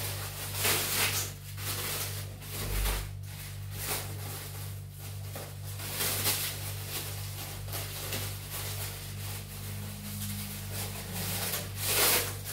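Packaging being unwrapped and handled: irregular rustling, over a steady low hum.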